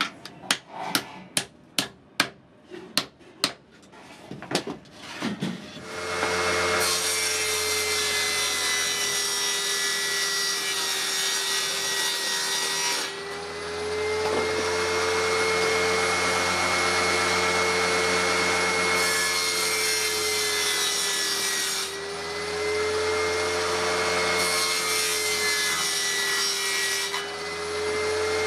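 A quick series of sharp knocks, then an electric power tool starts and runs steadily on wood with a high whine. The whine sags a little in pitch as the tool works and eases off briefly three times.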